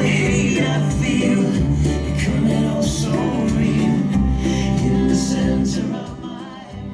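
Recorded music with a heavy bass line played through a vintage Pioneer SA-5200 amplifier and Klipsch bookshelf speakers, set flat. It fades out near the end.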